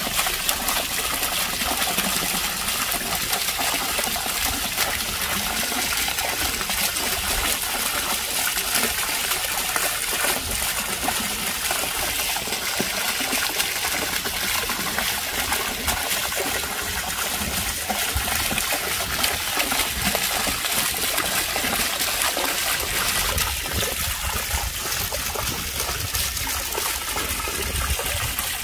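Fountain water pouring over a ledge and splashing, a steady, even noise.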